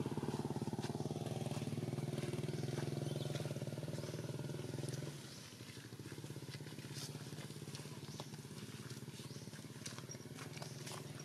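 A small engine running steadily at one pitch, stopping abruptly about five seconds in. Faint outdoor background with scattered short high ticks follows.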